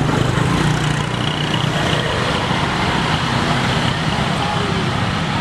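Steady motor-vehicle engine noise, an even low hum under a broad hiss with no breaks.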